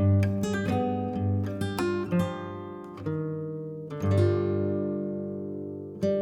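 Background music of acoustic guitar: plucked notes and strummed chords, with a long ringing chord about four seconds in that slowly fades.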